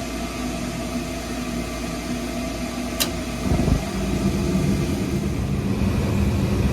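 LP gas furnace running: a steady motor hum, a sharp click about three seconds in, then a deeper, louder rumble that sets in and holds.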